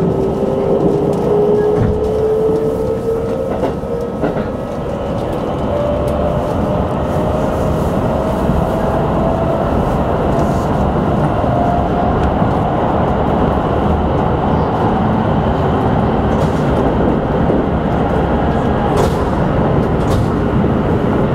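Keikyū 2100 series train accelerating. The whine of its Siemens inverter-driven traction motors rises steadily in pitch for the first half and then fades, over a steady rumble of wheels on rails.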